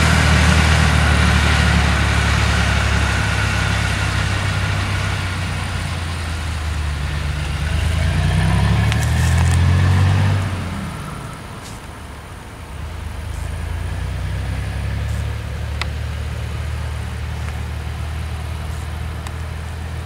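Diesel engines of a grain dump truck and a New Holland tractor pulling a trailer, driving across a stubble field: a steady low drone that swells and rises in pitch about eight to ten seconds in, then drops away and settles again.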